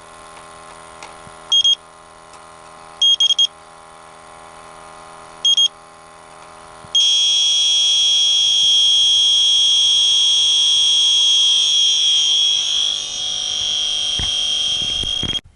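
Electronic refrigerant leak detector giving short high beeps every second or two over a steady hum. About seven seconds in it switches to a loud continuous high alarm tone, the sign that it is sensing refrigerant at a leak, and near the end the tone cuts off suddenly.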